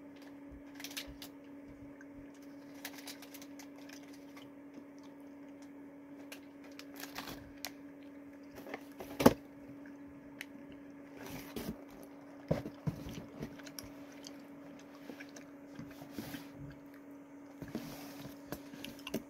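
A person chewing gummy fruit snacks, with scattered soft handling noises and one sharp knock about nine seconds in, over a steady low hum.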